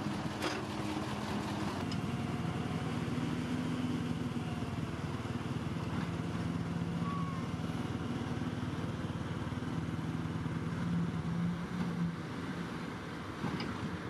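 Diesel engines of Komatsu bulldozers running steadily under work, a low drone whose pitch shifts up and down, with a few short sharp knocks.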